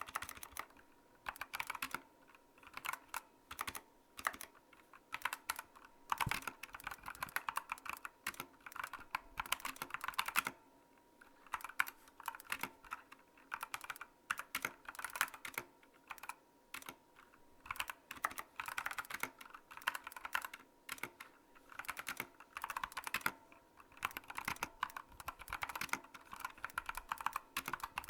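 Typing on a mechanical keyboard with Outemu Brown tactile switches: rapid key clicks in runs of several seconds, with a couple of short pauses between runs.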